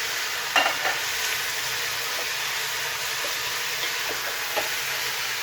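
Skinless chicken sautéing in hot oil in a pan: a steady sizzling hiss, with a sharp clack of the stirring utensil about half a second in and a few faint ticks after.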